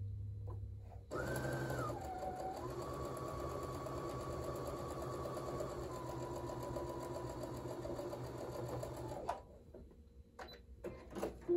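Brother electric sewing machine stitching a seam through pinned fabric. The motor whine starts about a second in, dips in pitch briefly, runs steadily, and stops about nine seconds in, followed by a few light clicks.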